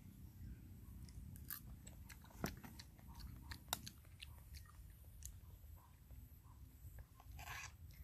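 Faint chewing and mouth sounds of a person eating blood cockle porridge, with scattered small clicks and two sharper clicks about two and a half and three and a half seconds in.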